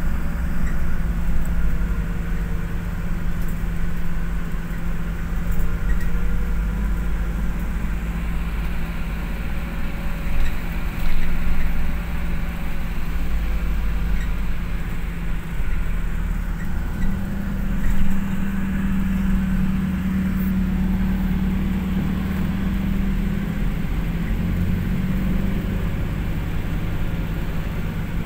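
Bus engine and road noise heard from inside the passenger cabin: a steady low drone whose engine tone shifts a couple of times as the bus changes speed.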